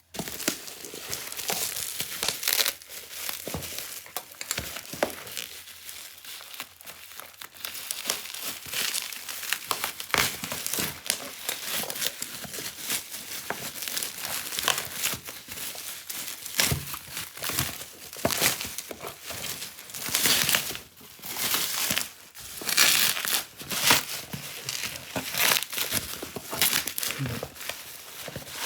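Plastic bubble wrap being unwrapped and pulled off by hand, with continuous crinkling and rustling, some tearing, and louder bursts of crackle now and then.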